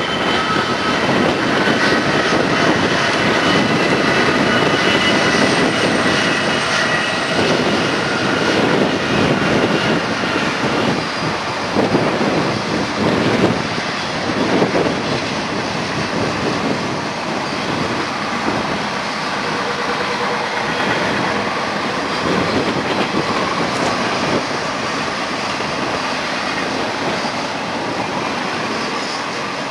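Diesel locomotives of a BNSF double-stack container freight train passing, with a few steady high tones over the noise. They are followed by the steady rolling of the container cars' wheels on the rails, a little quieter in the second half.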